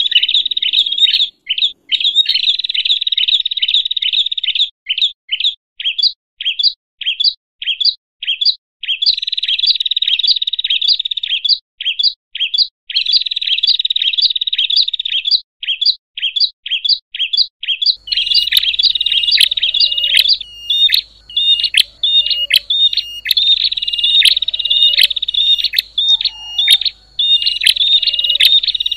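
Small prenjak birds chirping noisily in fast, dense runs of short, high, sharp notes, broken in places into separate chirps a few times a second. This is an agitated 'ribut' lure call used to draw other prenjak in. About two-thirds of the way in, the recording switches to another take, with a low hum and extra high ticks under the chirping.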